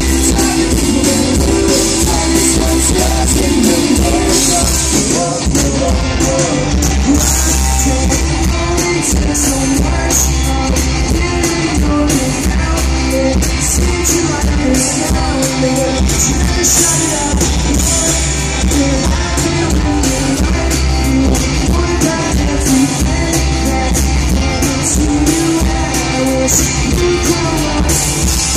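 Live rock band playing: electric guitars, electric bass and drum kit, with a lead vocal, heard from the crowd in front of the stage.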